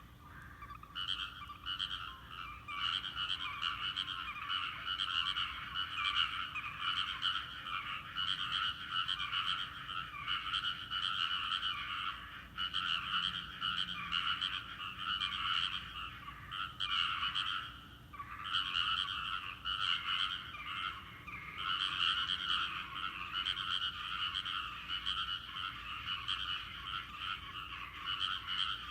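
A chorus of many rice-paddy frogs calling together, a dense, continuous pulsing croaking that thins briefly about eighteen seconds in.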